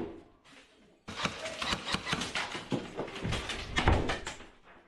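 A gloved fist banging on an interior door: a quick, irregular run of knocks starting about a second in and stopping just before the end.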